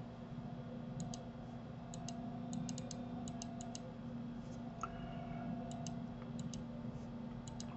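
Computer mouse clicking: about twenty quiet, sharp clicks, some in quick runs, over a faint steady hum.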